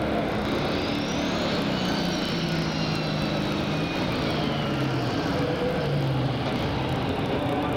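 Super stock pulling tractor's turbocharged diesel engine running loudly, its pitch shifting up and down as it is revved. A high turbo whine climbs over the first second or two and then slowly falls.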